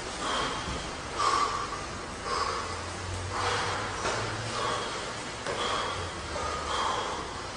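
Bodybuilders' forceful breathing as they flex and hold poses: a series of short, sharp exhalations through the nose and mouth, about one a second.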